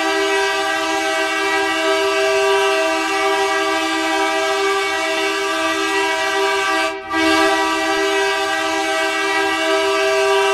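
Ice hockey goal horn blasting: a loud, steady chord of several held notes that breaks off for an instant about seven seconds in, then sounds again.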